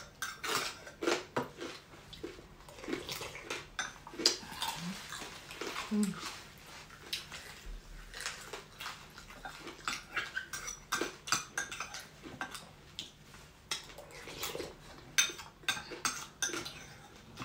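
Metal spoons and forks clinking and scraping against ceramic bowls and plates in many irregular short clicks.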